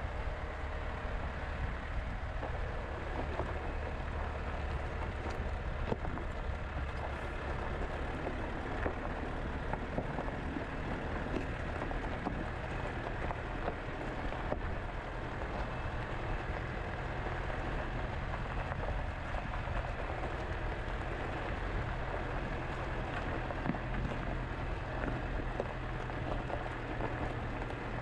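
Pickup truck driving along a gravel track: a steady low rumble with a continuous crackle of tyres on loose gravel.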